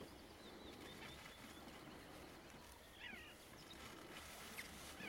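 Quiet lakeside ambience with a few faint, short bird calls scattered through it, the clearest about three seconds in.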